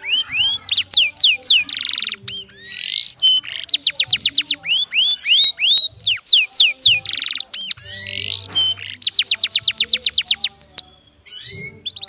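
Domestic posture canary singing a long, loud song: fast series of repeated whistled notes, each series about a second long before switching to a different note type, with a short lull near the end.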